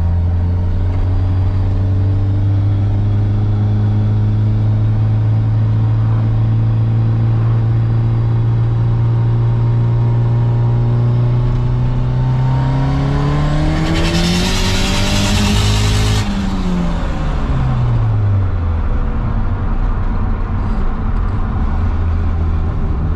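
Turbocharged SR20DET four-cylinder engine heard from inside the car's cabin, cruising steadily, then revving up hard for a few seconds under acceleration. A loud hiss builds near the top of the pull and cuts off suddenly as the revs drop back to a steady cruise.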